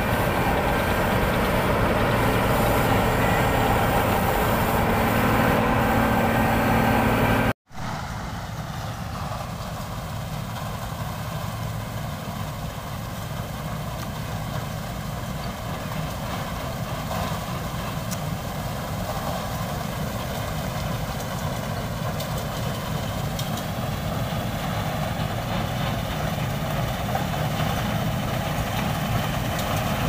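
New Holland 8070 combine harvester running with a steady engine and machinery drone, close and loud at first. After a sudden break about seven and a half seconds in, it is farther off and grows gradually louder as it moves nearer through the crop.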